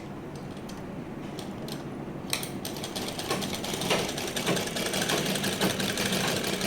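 Sewing machine stitching with its stitch length set to 2, for short stitches: a few light clicks, then about two and a half seconds in the machine starts running with a rapid, rhythmic clatter that grows louder.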